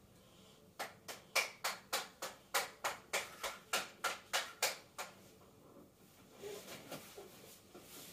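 A quick, even run of about fifteen light taps, roughly three or four a second, lasting about four seconds and then stopping.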